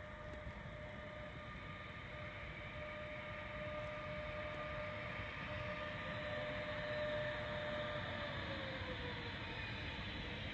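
Regional train hauled by an E464 electric locomotive pulling into the station: a steady electric whine in several pitches over a low rumble, growing louder as it approaches, then falling in pitch about eight seconds in as the train slows.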